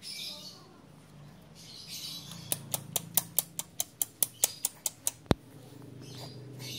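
A fast, even run of about fourteen sharp clicks, about five a second, starting a little past two seconds in and lasting close to three seconds.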